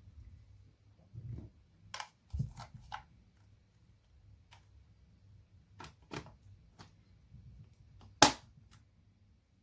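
Scattered sharp clicks and knocks of hard objects being handled, with one much louder sharp click near the end.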